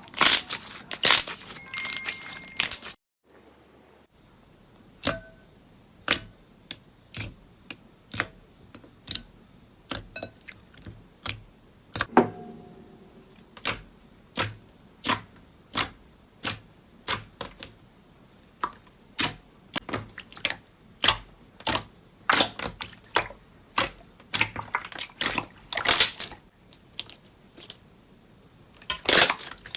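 Slime being pressed and worked by hand, giving sharp crackling clicks about twice a second, with denser crackling at the start and near the end.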